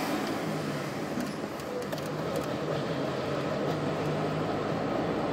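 Steady road and engine noise of a car driving at low speed, heard from inside the cabin.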